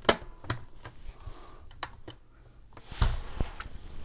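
Handling noise from a plastic desktop thermal label printer being turned over in the hands: a sharp click at the start and a few lighter clicks, then a rustle and two soft knocks about three seconds in.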